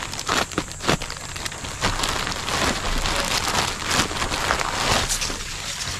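Plastic courier pouch crinkling and rustling as it is pulled open by hand, with many sharp crackles.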